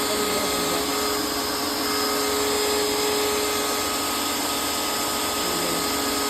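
Greenworks 2000 PSI electric pressure washer's motor and pump running steadily with a constant whine. It keeps running with the trigger not squeezed, a sign that the automatic start/stop is not shutting it off.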